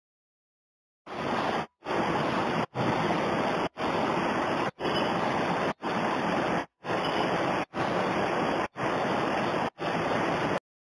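Brown floodwater rushing and tumbling over a concrete ledge in a steady torrent, starting about a second in. The sound cuts out briefly about once a second.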